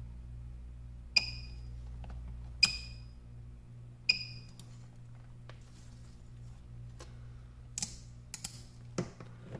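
Three sharp snaps from a battery-powered PCB spot welder's 8-gauge copper needles firing through 0.15 mm nickel strip, about a second and a half apart, each followed by a brief ringing tone. A few faint clicks come near the end.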